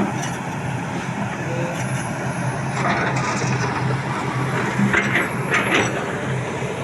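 Heavy diesel machinery, likely an excavator, running steadily, with a few short sharp hisses or clanks about three, five and six seconds in.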